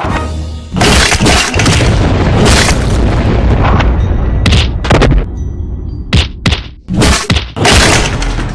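Dubbed fight-scene sound effects: a rapid string of booming punch and stick-hit impacts, about eight sharp hits, over a dense, loud soundtrack.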